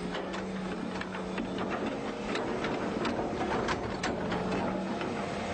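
Excavator at work digging: a steady engine hum with irregular clicks and clanks from the bucket and arm.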